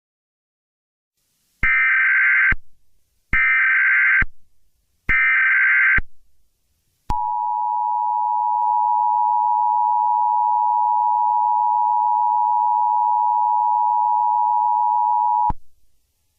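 Emergency Alert System alert tones: three short, evenly spaced squawks of digital data tones (the SAME header), then the two-tone EAS attention signal, a steady dual tone held for about eight seconds before cutting off sharply.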